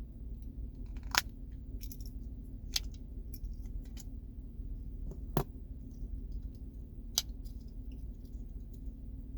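Sharp clicks and small taps of a plastic key fob case and its metal key being handled and worked at, four louder clicks standing out about 1, 3, 5½ and 7 seconds in, over a steady low hum.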